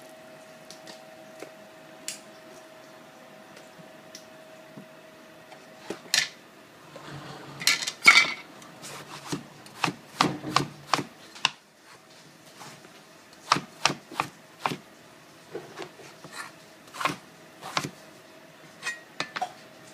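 Kitchen knife cutting eggplant on a plastic cutting board: irregular sharp knocks of the blade striking the board, starting about six seconds in and loudest around eight seconds.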